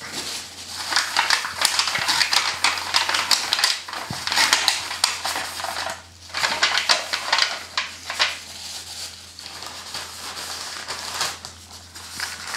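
Kitchen paper crinkling and rubbing against aluminium foil pie dishes as they are wiped, in quick rustling strokes with a short pause about six seconds in; the handling is softer near the end.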